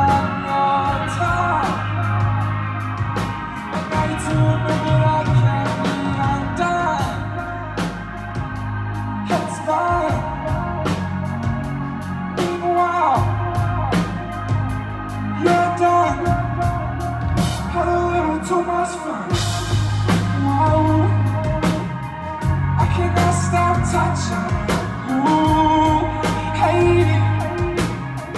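Loud live concert music: sung vocals over a heavy bass line and a drum kit.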